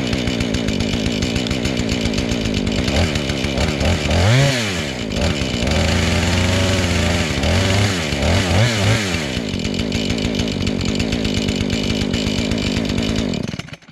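Two-stroke gasoline chainsaw fitted with a mini sawmill attachment, running with its chain spinning free on the bar in a test run before cutting. It is revved up and back down twice, then shut off near the end.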